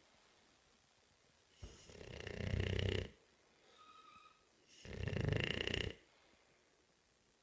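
Bulldog snoring: two long snores about three seconds apart, with a faint whistling tone between them.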